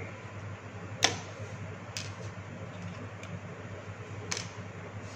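Four short, sharp clicks of a small metal screwdriver and hard plastic as the yellow jaw parts of a clamp meter are pried loose. The loudest comes about a second in and another strong one near the end, over a steady low hum.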